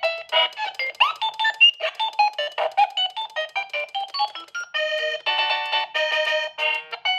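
A doorbell with 55 selectable chime tunes playing a melody of quick, bright electronic notes, with a short upward glide about a second in. About two-thirds of the way through, the notes change to a steadier repeating pattern of fuller chords.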